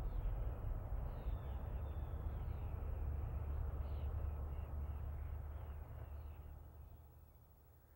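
Outdoor ambience of birds calling in many short chirps over a low rumble, fading out near the end.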